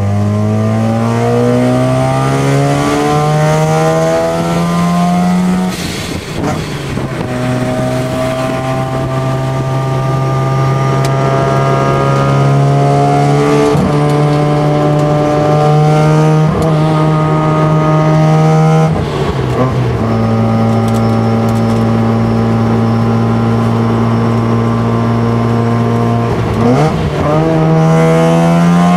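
Single-turbo Mazda 13B rotary engine of an RX-7 FD3S pulling hard through the gears, heard from inside the cabin: the engine note climbs, drops at each upshift about six seconds in, near twenty seconds and near the end, then rises slowly again under load in the higher gears.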